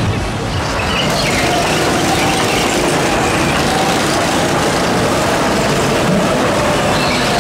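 Small engines of bumper karts running steadily as they circle a fairground kart track.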